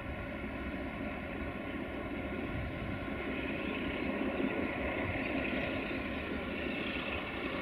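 Distant drone of an approaching 060-DA (LDE2100) Sulzer diesel-electric locomotive hauling a freight train, growing slowly louder.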